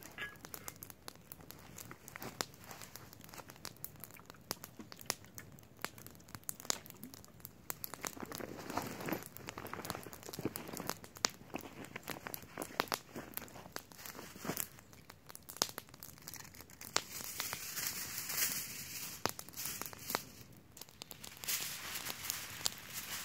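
Aluminium foil crinkling and crumpling as it is handled and folded, a dense run of sharp crackles.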